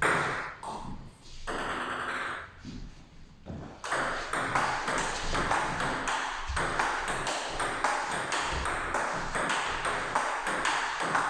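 Table tennis rally: the ball clicking back and forth off the bats and the table in a quick, regular rhythm, starting about four seconds in after a few quieter taps.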